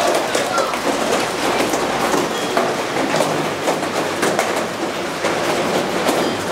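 Hail pelting pavement and hard surfaces: a steady, dense clatter of many small impacts over a rushing wash of noise.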